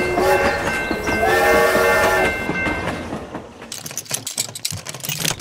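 Toy train running past: a short horn toot at the start and a longer one of about a second a little after, over rattling wheel clatter that dies down about three seconds in.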